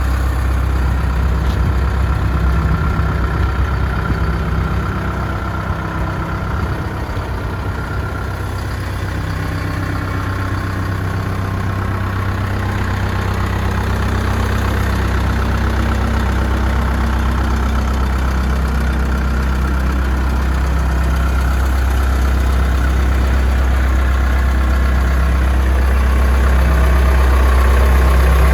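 Mauldin 1750-C asphalt paver's diesel engine idling steadily, growing a little louder toward the end.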